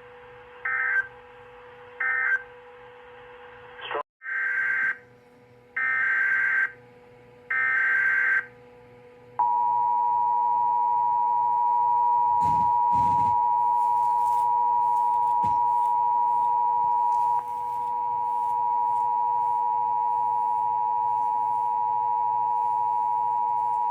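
Emergency Alert System tones: two short digital data bursts (the end of the end-of-message code), then three longer screeching data bursts of a new SAME header, then from about nine seconds in the steady two-tone EAS attention signal, which holds unchanged to the end.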